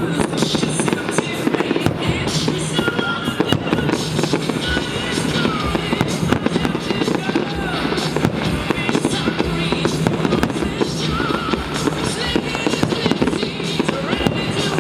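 Fireworks going off in a dense, continuous barrage of bangs and crackles, with music playing underneath.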